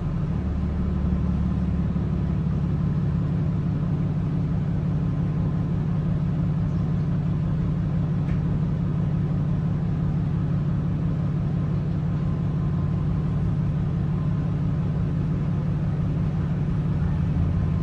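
Inside a 2022 Gillig hybrid bus underway: the Cummins B6.7 diesel engine and BAE hybrid drive running steadily with a low, even hum.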